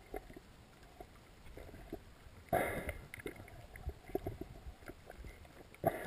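Muffled underwater noise heard through a GoPro's waterproof housing: quiet at first, then a sudden short rush of water about two and a half seconds in, followed by scattered soft knocks and another short rush near the end.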